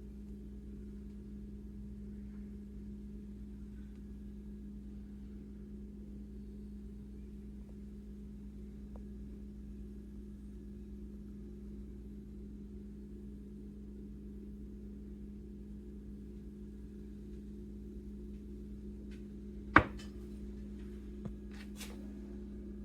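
A steady low electrical or motor hum. A single sharp click comes near the end, followed by a couple of fainter clicks.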